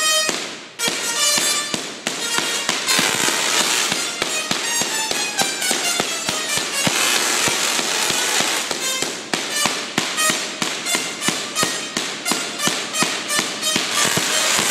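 Singing Tesla coil playing a tune: its spark discharges buzz out pitched notes with sharp crackling snaps, settling into a fast, steady beat of snaps in the second half.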